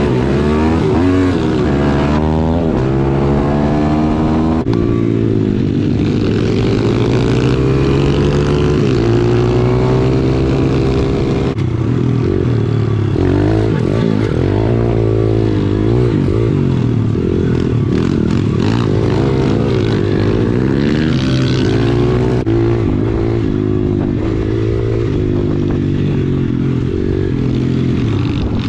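Small single-cylinder four-stroke pit bike engines being ridden: the pitch climbs and drops again and again as they are revved up and eased off through the gears. At times a second bike's engine is heard over the first.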